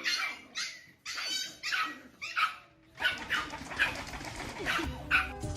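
A dog barking repeatedly in short, high-pitched barks, about two to three a second.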